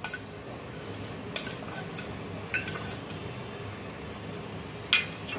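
A perforated steel spoon clinking and scraping against a steel container and a non-stick pan as chopped herbs, onion and paneer are tipped in. There are a handful of scattered clinks, the sharpest near the end.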